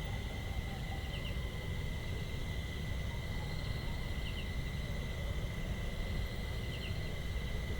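Rural outdoor ambience: a steady high insect drone with a pulsing shimmer above it, and short double chirps three times, over a low steady rumble.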